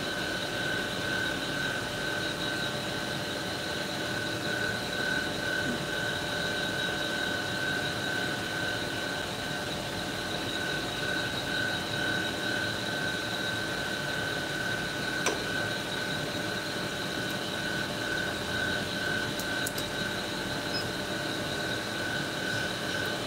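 Tool and cutter grinder running with its cup wheel spinning free, a steady whine with two high tones over a mechanical hum. One sharp click about fifteen seconds in.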